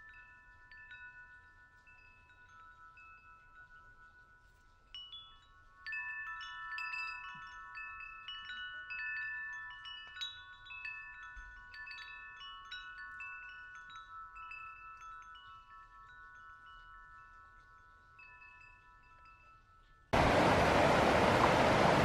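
Hanging metal-tube wind chime set ringing by hand, its clear tones overlapping, building up about six seconds in and slowly dying away. Near the end it cuts suddenly to the loud, steady rush of a rocky stream's rapids.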